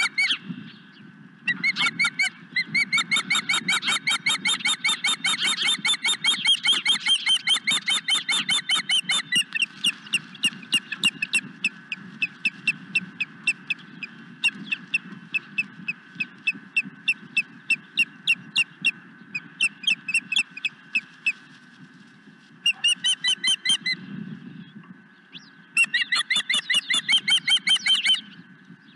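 Osprey calling: long runs of short, high, whistled chirps, several a second, with a few brief pauses.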